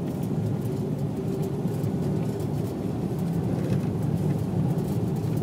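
A car driving: a steady low engine and road rumble, with faint scattered ticks.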